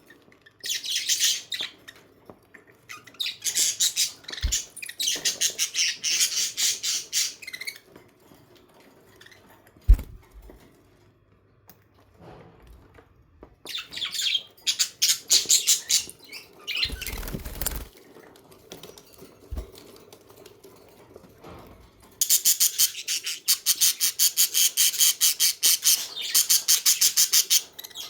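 Budgerigars chattering in stretches of fast, rapid-fire chirps, with pauses between the stretches. A single sharp knock about ten seconds in, and a short low noise a little after halfway.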